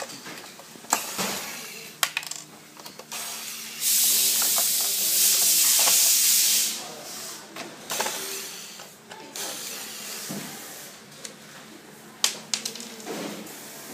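Electric screwdriver whirring as it backs screws out of a robot vacuum's plastic chassis, with sharp clicks and knocks of plastic parts and screws being handled. A loud hiss lasts about three seconds near the middle.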